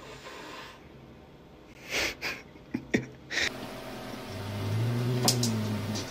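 A cat hissing in a few short, sharp bursts about two seconds in. About a second later a cat gives a low, drawn-out growling yowl.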